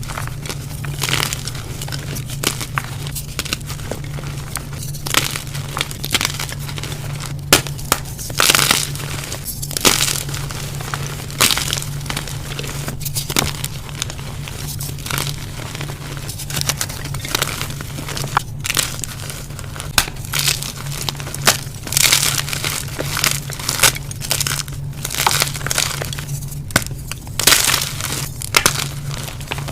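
Dyed gym chalk being crushed and crumbled in a run of irregular, crisp crunches, over a steady low hum.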